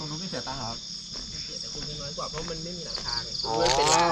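Insects chirring in a steady, continuous high-pitched drone, with faint voices underneath and a person's voice coming in loud near the end.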